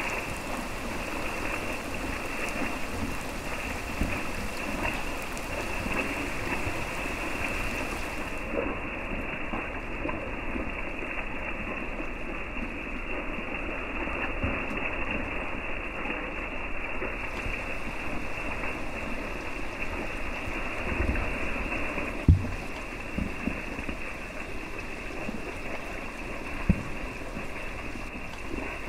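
Steady rain hiss. Two sharp low thumps stand out, about three-quarters of the way through and again near the end.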